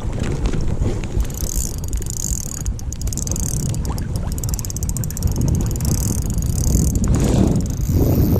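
Fishing reel being cranked, a fast fine clicking whir that starts about a second in and comes and goes in spells, over a steady low rumble of wind on the microphone.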